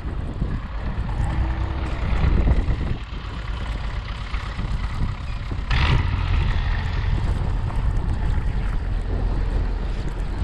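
Belarus MTS-50 tractor's four-cylinder diesel engine running steadily while clearing snow, with wind blowing over the microphone.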